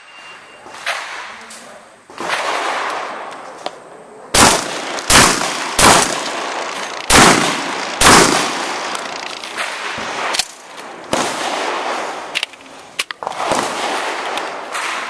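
Pump-action 12-gauge shotgun firing five shots from about four seconds in, each about half a second to a second apart, with the pump worked between shots. A few lighter clicks and knocks follow later.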